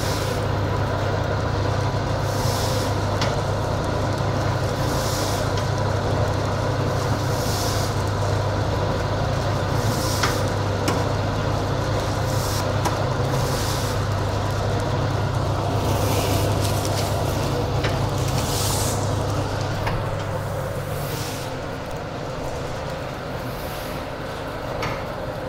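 Automatic pouch packing machine running while it packs cumin seeds: a steady motor hum with a short hiss that repeats about every two and a half seconds.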